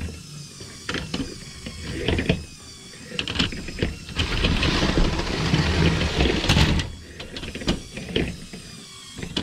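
Motorized LEGO AT-AT's gear-driven walking mechanism whirring and clicking, with a LEGO train's plastic wheels clattering over blue plastic track. The rattling grows louder for a couple of seconds in the middle.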